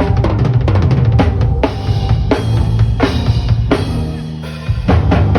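Band playing at a sound check, led by a drum kit: kick drum, snare and cymbals struck in quick succession over sustained low bass notes, with a short drop-off before a heavy hit near the end.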